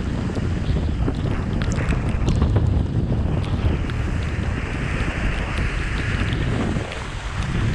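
Wind buffeting the microphone during a fast downhill slide on snow, a steady heavy rumble. Over it, the hiss of sliding on packed snow, stronger in the second half.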